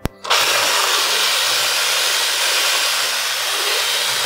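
Electric hand mixer with wire whisk beaters, switched on with a click and then running steadily at speed, whisking a thin liquid mix of eggs, sugar, honey and oil in a stainless steel pot.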